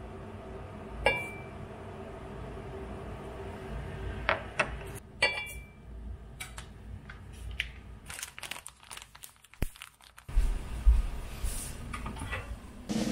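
A wooden spoon knocking against a glass teapot as dried herbs are tipped in: a few sharp clinks, two of them with a short glassy ring, then dry crinkling and rustling near the end.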